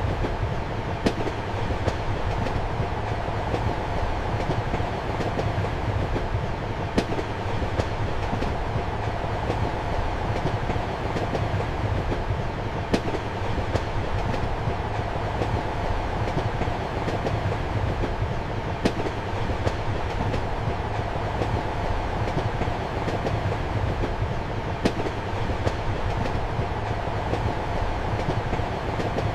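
Passenger train heard from inside a compartment: a steady low rumble and running noise, with the wheels clacking over rail joints. The strongest clacks come about every six seconds, with lighter ones between.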